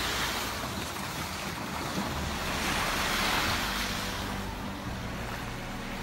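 Lake water splashing and churning as a man and a German Shepherd run and wade out through the shallows, with wind on the microphone. The splashing swells and fades a few times.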